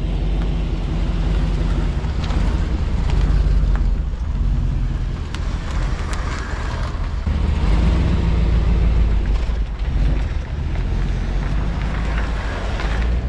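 Tow vehicle's engine running with a steady low rumble, its level rising and falling.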